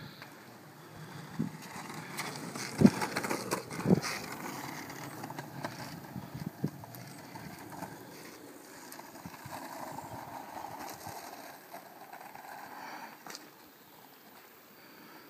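Small hard wheels of a waveboard or longboard rolling on an asphalt road, a steady rough rumble broken by a few sharp knocks and clacks, the loudest about three and four seconds in. The rolling eases off near the end.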